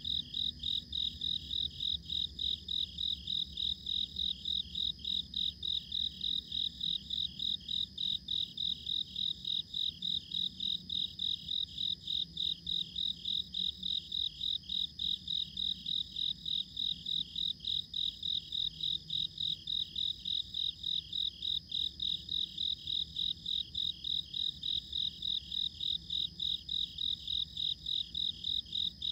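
Cricket chirping in a steady, even rhythm of high-pitched chirps, a few a second.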